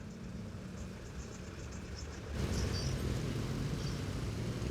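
Motorcycle engine running low and steady, with faint rapid insect-like chirping above it. About two seconds in, a louder steady rush of traffic and road noise rises and holds.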